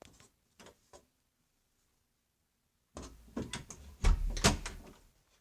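A small door being unlocked and opened by hand: a few light clicks, then about three seconds in a run of clattering knocks and clicks with a heavier thump near the end.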